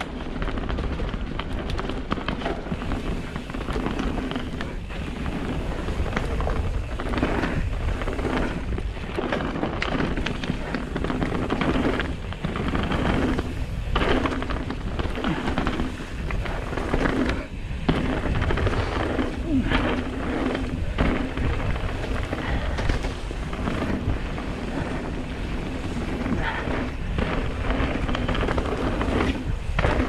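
Wind buffeting the camera microphone over the rumble and crunch of mountain bike tyres rolling fast down a rocky, gravelly dirt trail, with the bike rattling in many quick knocks over the bumps.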